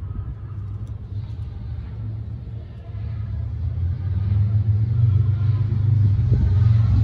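Low, steady engine rumble that grows louder from about three seconds in.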